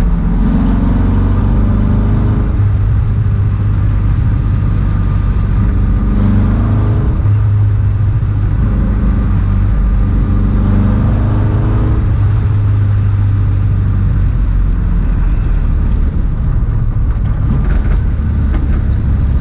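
Ford Escort Mk1's engine heard from inside the cabin while driving, its note rising in pitch three times as the car accelerates, over steady road noise.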